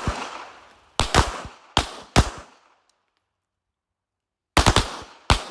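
Pistol shots fired in quick succession: a cluster of four about a second in, a pause, then another rapid cluster near the end. Each crack has a short ringing tail.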